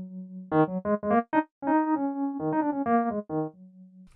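Sampled piano patch from Reason's factory sound bank, played in the NN-XT sampler. A held low note gives way about half a second in to a quick run of notes and chords, and it ends on another sustained low note.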